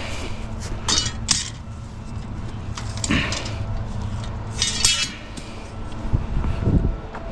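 White wire closet shelving clattering and clinking as it is picked up and handled: several short metallic rattles with a brief ring, a second or two apart, and a couple of duller knocks near the end, over a steady low hum.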